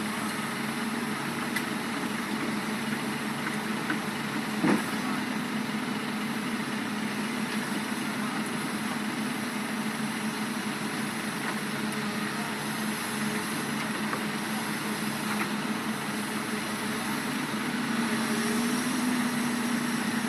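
Komatsu PC200-8 excavator's diesel engine running steadily, with one short sharp knock a little under five seconds in. The engine gets slightly louder near the end.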